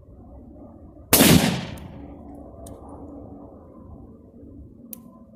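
A single rifle shot from an Egyptian Hakim semi-automatic rifle firing 8mm Mauser (7.92x57) steel-case ammunition, about a second in, with a short echo trailing off over the next second. A few faint clicks follow.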